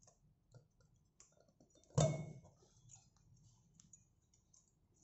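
Small clicks of metal tweezers working the plastic push-pin lock of a CPU cooler's heatsink, pressing the lock to release it, with one sharp louder click about two seconds in.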